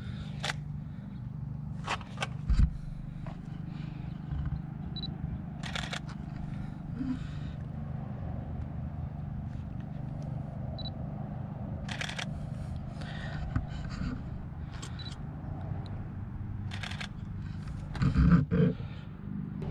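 Canon DSLR shutter firing, single clicks spread out with pauses between them as a series of photos is taken. There is a dull thump about two and a half seconds in.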